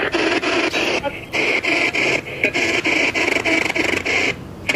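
Ghost-hunting spirit box sweeping through radio stations: a choppy stream of static and clipped radio fragments that breaks up several times a second, with a few brief drops partway through.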